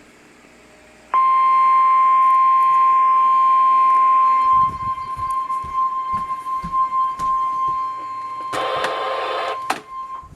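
NOAA Weather Radio 1050 Hz warning alarm tone through a radio speaker: one steady high tone that cuts in about a second in and holds for about nine seconds, dropping in level partway through. It is the tone that announces a warning broadcast, here a severe thunderstorm warning. Low knocks sound under the second half, with a short burst of hiss near the end.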